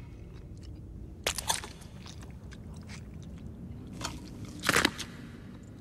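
A man eating noisily, with close, wet chewing and small mouth clicks, and two louder crunching bites, one about a second in and one near the end.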